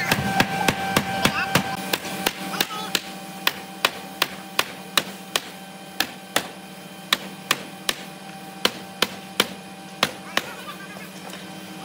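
Hammer blows on a wooden block, knocking the rails of a solid-wood panelled door frame tight onto its joints: a run of sharp knocks, two or three a second, that stops about ten and a half seconds in. A steady machine hum runs underneath.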